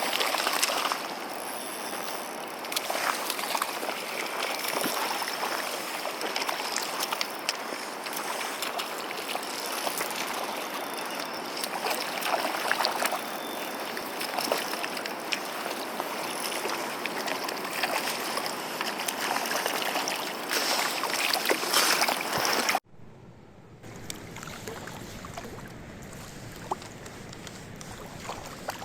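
Mountain stream water rushing steadily over rocks, with small splashes and clicks in it. About 23 seconds in it cuts abruptly to a quieter, duller rush with a low rumble.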